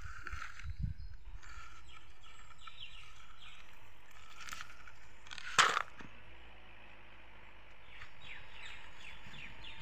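Birds chirp faintly in the background. A few small scrapes and knocks come near the start, and about halfway through there is one short, sharp clatter of gravel spilling from a plastic toy dump truck's tipping bed.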